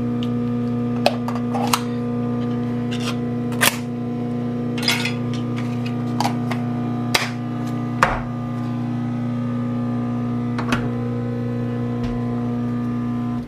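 A kitchen appliance running with a steady electric hum that stops abruptly at the end, with scattered clicks and knocks of utensils on top.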